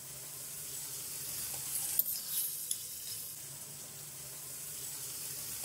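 Beef karahi frying in a steel karahi (wok), a steady sizzle now that the liquid has cooked off, while a spatula stirs the meat and green chillies, with a few scrapes against the pan about two seconds in.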